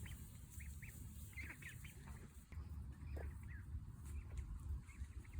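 Ducklings peeping faintly: scattered short, high calls, a couple each second, over a low steady hum.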